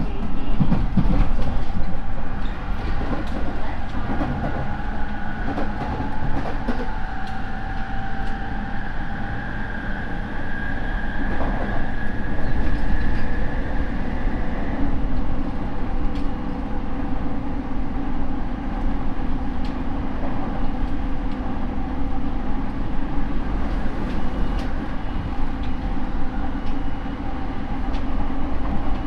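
Rinkai Line 70-000 series electric train running, its MT73 traction motors and Mitsubishi IGBT inverter giving a loud whine that rises slowly in pitch and cuts out about halfway through. After that comes the steady rumble of the wheels on the rails with scattered rail-joint clicks. This car's motors are unusually loud, which is why it is known as a noisy car.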